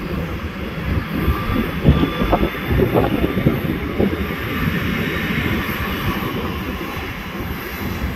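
Jet engines of a taxiing Southwest Boeing 737: a steady rush with a low, uneven rumble.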